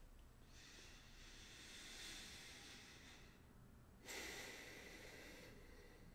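Faint breathing of a person standing near the microphone: two soft breaths, a longer one and then a shorter one about four seconds in.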